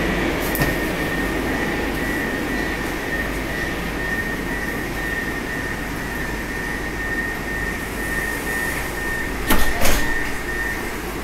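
Moscow 81-765 "Moskva" metro car standing at a platform with its doors open, a steady hum and a thin high tone running, then the sliding doors shutting near the end with two sharp knocks, after which the tone stops.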